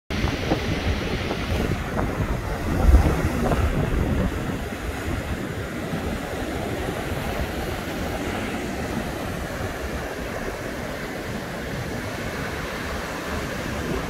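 Strong surf breaking on a sandy ocean beach, a steady rush of waves, with wind buffeting the microphone that is loudest about three seconds in.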